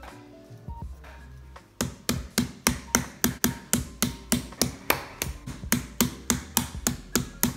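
Meat mallet pounding raw chicken breast flat on a wooden cutting board: repeated sharp blows, about four a second, starting about two seconds in.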